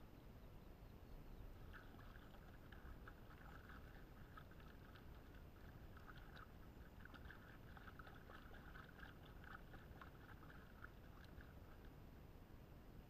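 Faint splashing and sloshing of lake water as clothes are scrubbed and wrung by hand in it, a light crackly patter of small splashes from about two seconds in until near the end.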